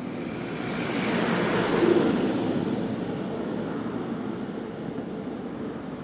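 A vehicle passing by on the highway, its noise swelling to a peak about two seconds in and fading away, over the steady low running of an idling motorcycle engine, the Trident 660's inline three-cylinder.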